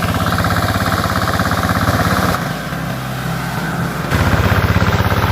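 Farm tractor engine chugging at an even, rapid beat as it is driven through a muddy rice field. It eases off a little in the middle and comes back louder about four seconds in.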